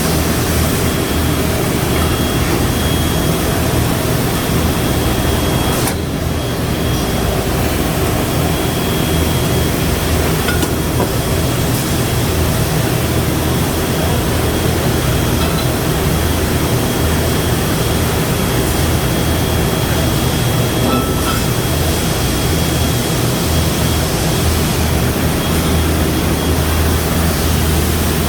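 Automated disc-machining machinery running steadily on a factory floor: a constant low hum under a wash of machine noise, with a thin, steady high whine.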